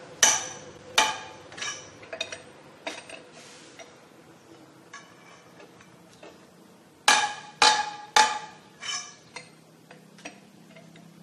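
Lug wrench with a steel pipe extension clanking against the wheel nuts of an Isuzu Elf truck wheel as the nuts are tightened. Sharp ringing metal clanks in two runs: about five in quick succession at the start and four more about seven seconds in, with lighter clinks between.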